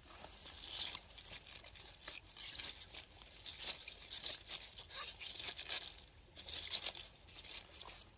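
Leaves and grass rustling and plant stems tearing as vegetation is pulled by hand, an irregular run of crackles and rustles.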